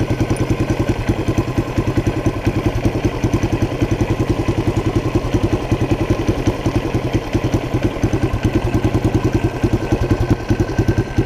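1976 Honda XL175's single-cylinder four-stroke engine idling steadily when warmed up, a quick, even beat of firing pulses.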